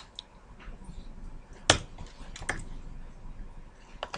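A few sharp clicks of a computer mouse and keyboard: one louder click about one and a half seconds in, a quick pair about half a second later, and a faint click near the end.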